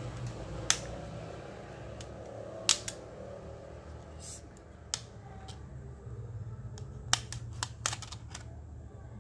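Plastic retaining clips of a Redmi Note 2's midframe snapping loose as the frame is pried off the phone by hand. About seven sharp clicks, a few seconds apart at first and then several close together near the end, over a low steady hum.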